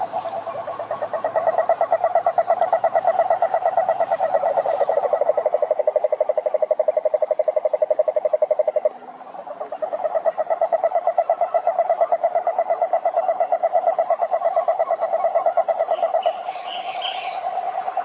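Male cururu toads (Rhinella marina) giving their advertisement call: long, low, rapidly pulsed trills. One trill breaks off about nine seconds in and another starts a moment later. A few short high chirps come near the end.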